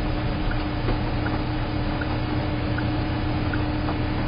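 Steady low drone of a running vehicle engine with a constant hum, a faint light ticking recurring about twice a second.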